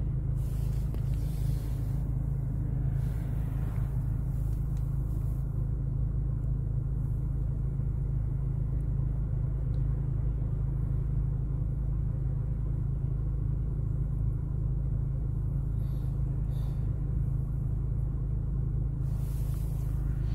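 Steady low rumble of a running car heard from inside its cabin.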